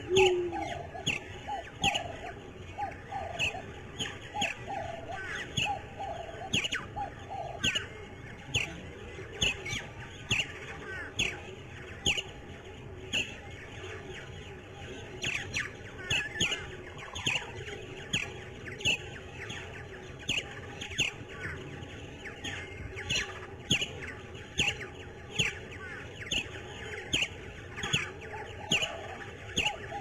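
A bird calling over and over in short, downward-sweeping chirps, about one or two a second. A lower, quicker call runs under them for the first several seconds and returns near the end.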